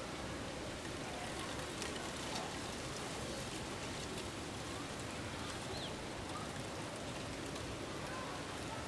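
Steady, even outdoor noise, like wind or light rain, with a few faint ticks and one brief high chirp about two-thirds of the way through.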